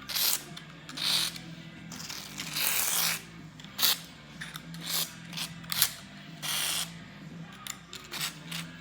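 Several short hissing bursts of PB Blaster aerosol penetrating oil sprayed onto the engine's MDS solenoids, with a few clicks of hand-tool work between them. A steady low hum runs underneath.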